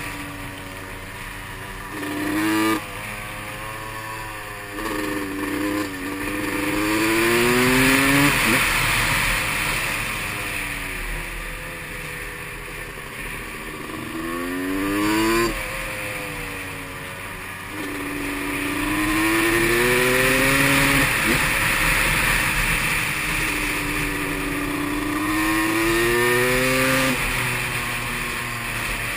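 Supermoto motorcycle engine accelerating hard through the gears, its pitch climbing and then dropping sharply at each upshift, about six times, with wind rushing over a helmet-mounted microphone.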